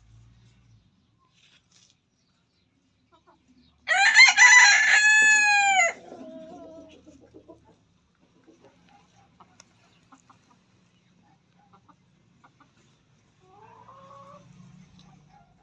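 A rooster crows once, loud and about two seconds long, about four seconds in, its pitch dropping at the end. A fainter, short chicken call follows near the end.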